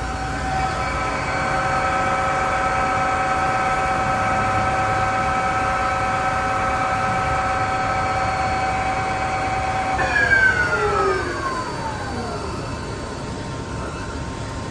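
Spindle of a Mazak M5N 2000 big-bore CNC lathe with 20-inch chucks running at a steady pitch, then slowing down about ten seconds in, its pitch falling over a couple of seconds as the spindle stops.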